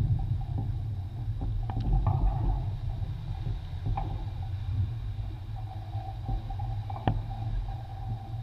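Water rushing along a Beneteau First 50 racing yacht's hull under sail, with wind on the microphone: a steady low rumble broken by a few sharp knocks.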